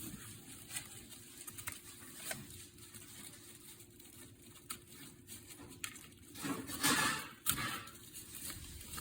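Light clicks and rustling as the parts of a cellular blind are handled, with a louder scraping rustle about seven seconds in as a part slides out of the blind's rail.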